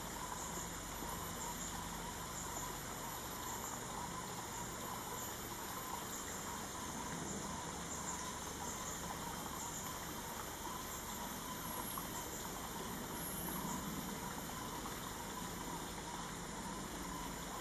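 Steady ambient hiss with a faint, continuous high-pitched tone running through it; no distinct bird calls stand out.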